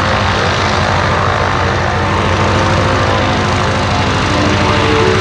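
Stearman PT-17 biplane's Continental seven-cylinder radial engine and propeller running at nearly full throttle on the ground, with a steady, fast pulsing beat.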